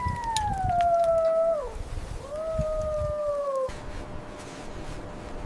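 Wolf howling: a long howl that sinks in pitch and breaks off under two seconds in, then a second, shorter howl that also falls away, over a low rumbling background.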